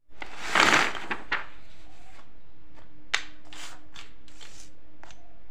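Toy alphabet letters tipped out onto a paper sheet: a loud rustling clatter about half a second in, then a few light clicks and short rustles as the pieces are spread around by hand.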